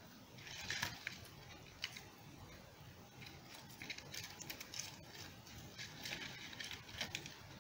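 Faint rustling of curling ribbon and light clicks of twigs knocking together as a ribbon is tied around a small bundle of sticks, in short scattered spells.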